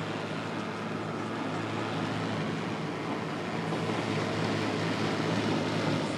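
Automatic car wash machinery running, heard from inside the car: a steady rushing noise with a low, even hum underneath.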